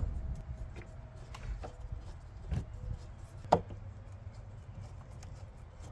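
Scattered light clicks and knocks of screws and metal lock hardware being handled and fitted against the door while the lock's screws are started, with one sharper click about three and a half seconds in.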